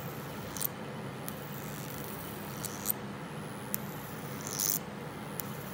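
High-voltage arc from a flyback transformer driven by fluorescent lamp ballasts, drawn to a hand-held metal tip: short, sharp crackles and snaps at irregular intervals, with one slightly longer sizzle about three-quarters of the way through. A steady low hum sits underneath.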